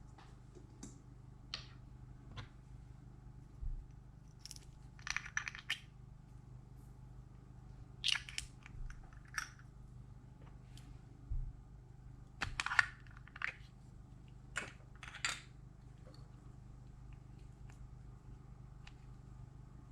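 Slime being worked by hand, giving irregular short bursts of crunchy crackling and squelching, a few seconds apart.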